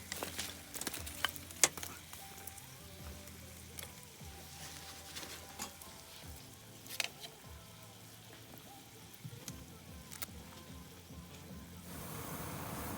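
Food sizzling on an iron griddle, with scattered sharp pops and crackles over a steady frying hiss.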